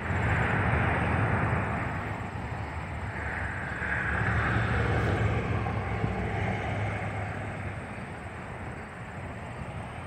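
A steady outdoor roar of distant engines, swelling a few seconds in and then slowly fading.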